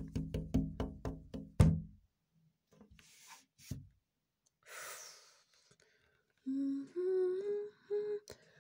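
A person humming a few wavering notes near the end. It is preceded by a quick run of soft knocks in the first two seconds and a short breathy rush about five seconds in.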